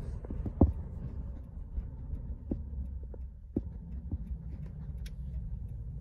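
Low, steady rumble of a vehicle driving, heard from inside the cabin, with a few light clicks and knocks.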